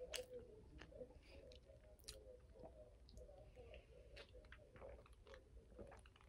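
Faint mouth sounds of chewing soft loaded macaroni and cheese, scattered soft clicks and smacks, then drinking from a can, over a faint steady hum.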